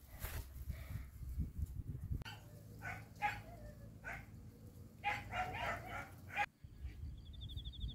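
A dog barking and yipping faintly in short bursts, over low wind rumble on the microphone.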